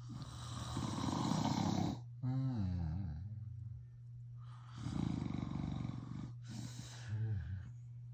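A man snoring loudly in sleep: two long harsh snores about five seconds apart, each followed by a short wavering, groan-like breath out.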